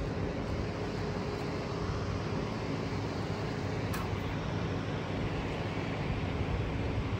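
Steady low mechanical hum with a background of outdoor noise, and a single short click about four seconds in.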